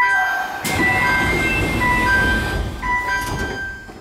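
Electronic door chime on a Sendai Subway station stop, playing a short run of clear stepped tones as the doors open, with a burst of rushing noise in the middle.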